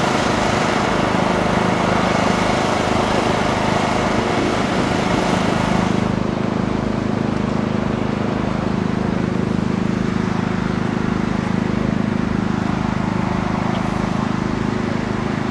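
An engine running steadily, with a hiss above it that drops away suddenly about six seconds in.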